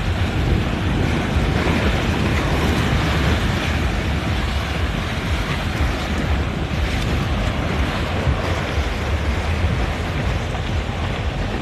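Wind buffeting the microphone, rumbling and unsteady, over a steady wash of waves and passing boat motors.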